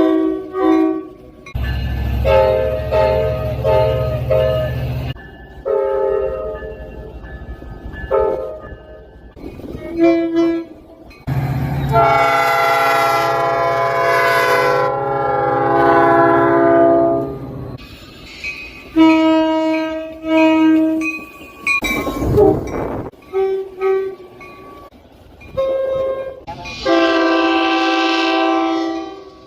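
A string of train horn blasts, some short and some held for several seconds, each sounding a chord of several tones, cut one after another with abrupt starts and stops. Some blasts have a low rumble beneath them, and one long blast about twelve seconds in slides lower in pitch as it goes on.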